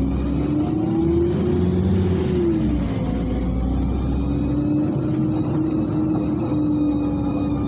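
LiAZ-5292.67 CNG city bus under way, with a steady low rumble and a sustained whine from the driveline. The whine drops in pitch briefly about three seconds in, then climbs back and holds.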